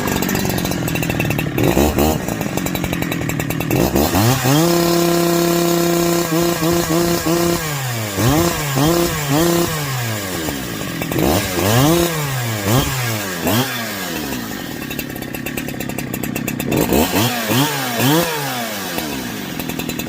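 Husqvarna 365 Special two-stroke chainsaw revved repeatedly from idle to wide open and back. At full throttle the engine stutters with brief drops in speed, the cutting-out fault that persists after a new ignition coil.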